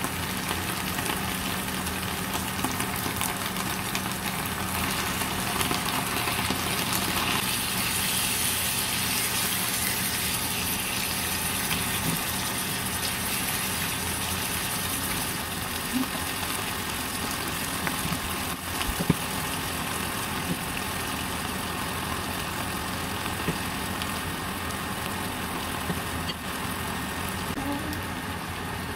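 Onions and then chunks of beef sizzling steadily in a frying pan, with a spatula stirring and a couple of sharp knocks of the utensil against the pan.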